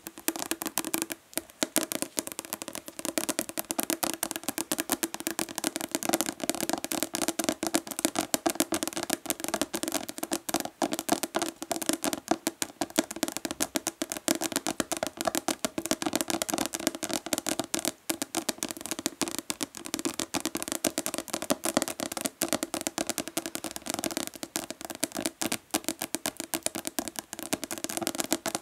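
Long natural fingernails tapping fast and hard on a plastic body lotion bottle, in a dense run of many taps a second.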